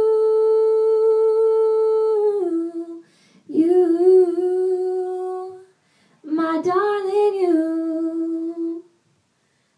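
Solo female voice singing a cappella: a long held note that steps down in pitch and fades about 3 seconds in, then two wordless, humming-like phrases with vibrato and quick melismatic runs, with a brief silence at the end.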